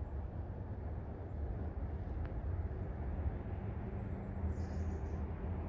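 Steady low outdoor rumble, with a brief faint high chirp about four seconds in.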